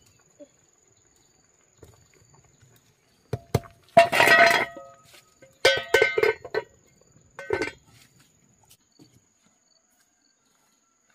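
Farm animal calling out three times: loud pitched cries, each under a second long, the first and longest about four seconds in and the last near seven and a half seconds, after a couple of sharp knocks.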